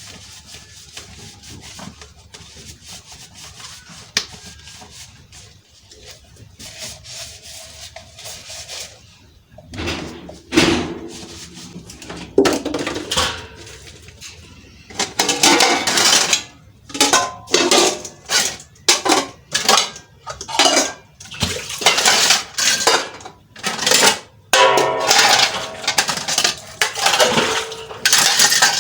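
Plates and cutlery clattering during hand washing-up: quiet at first, then from about ten seconds in a run of loud, irregular clinks and clatters.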